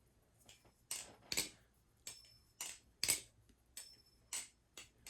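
Baliplus Orca V2 clone balisong being flipped, its handles clacking against the tang about eight times, some clacks with a slight ring. The clacks are muffled, which the flipper takes for an over-lubed pivot.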